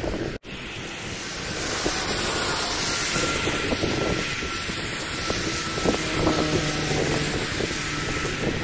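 Thunderstorm wind buffeting the microphone in a steady rush, mixed with traffic passing on a wet highway. The sound cuts out for an instant just under half a second in.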